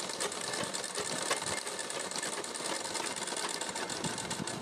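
Sewing machine running steadily, its needle stitching trim onto cotton fabric in a fast, even run of stitches.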